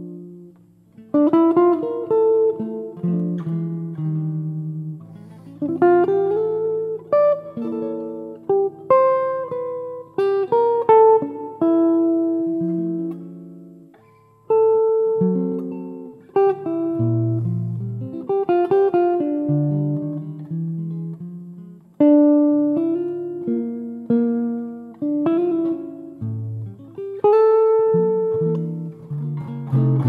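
Solo hollow-body jazz guitar playing a slow ballad, chords and melody notes ringing and fading in phrases with brief pauses between them.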